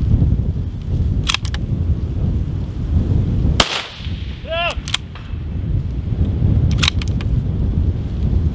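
One shot from a bolt-action precision rifle about three and a half seconds in, with short sharp clicks a second in and again near the end. Wind buffets the microphone throughout.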